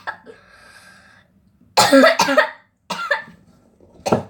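A girl's voice in short, cough-like bursts: one about two seconds in, a shorter one a second later, and a brief sharp one near the end.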